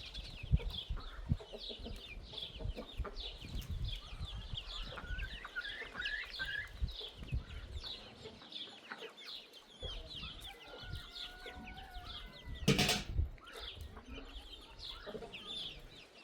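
Chickens clucking and calling in a steady stream of short calls, with a sudden loud burst of noise about three quarters of the way through.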